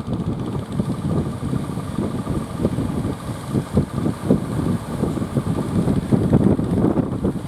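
Strong wind gusting against the microphone in uneven low buffets, over a faint steady engine hum.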